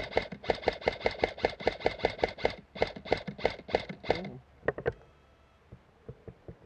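M4-style airsoft electric rifle firing a rapid string of shots, about six a second, that stops about four seconds in, followed by two or three more quick shots.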